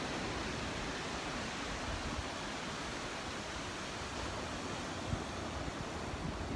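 Steady hiss of surf washing on the shore.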